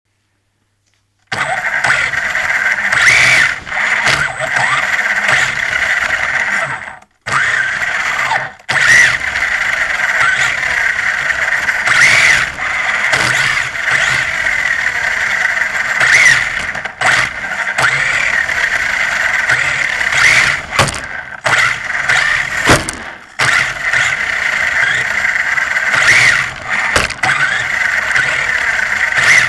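Turnigy 1/16 brushless 4WD mini rally car driving on a hard floor, heard from a camera mounted on the car: a steady high whine from the brushless motor and drivetrain that rises briefly with each burst of throttle, broken by sharp clicks. It starts after about a second of silence and cuts out twice, briefly, around seven and eight and a half seconds in.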